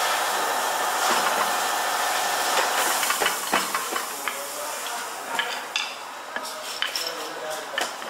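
A steady hiss for the first few seconds, then scattered metallic clinks and taps as a spur gear is worked loose on the crankshaft of a single-punch tablet press, a wooden bar braced against its teeth.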